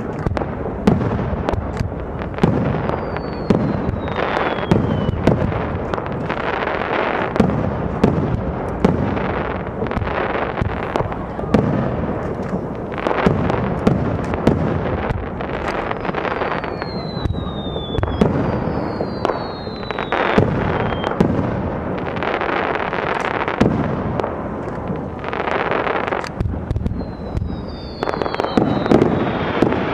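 Fireworks display: a continuous barrage of aerial shell bursts, many sharp bangs over a steady crackle. Several falling whistles can be heard, near the start and again in the second half.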